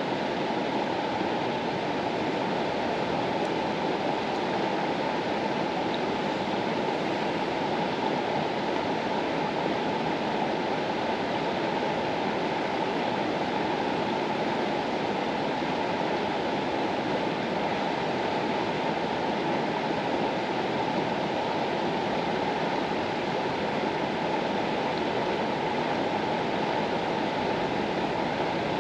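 River water flowing over its bed: a steady, even rush of water that does not change.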